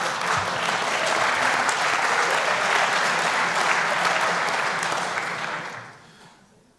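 Audience applauding, steady at first and dying away about six seconds in.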